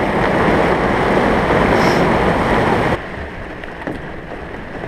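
Squall of heavy rain and wind, an even, loud rush; about three seconds in it drops suddenly to a much quieter wind hiss.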